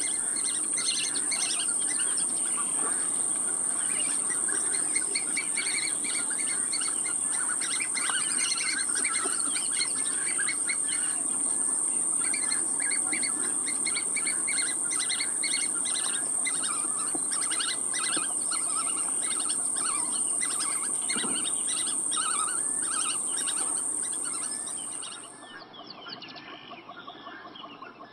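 Birds chirping and twittering over a steady high-pitched whine; the whine cuts off suddenly near the end and the sound drops much quieter.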